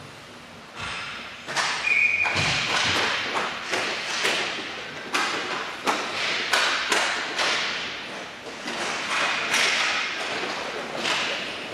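Hockey sticks and puck knocking and clacking during roller hockey play: irregular sharp strikes, several a second, each with a ringing echo in the large hall. The strikes pick up about a second and a half in after a quieter start.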